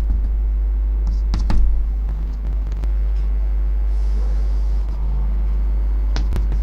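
A steady low hum, with a few sharp taps of chalk on a chalkboard as dashed lines are drawn. The loudest tap comes about one and a half seconds in, another comes near the end, and a short chalk scrape comes midway.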